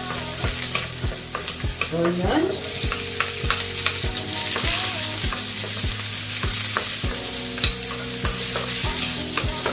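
Chopped garlic and onions sizzling in hot oil in a wok, with a wooden spatula scraping and knocking against the wok about two to three times a second as it stirs. The sizzling grows louder around the middle as more onion goes in.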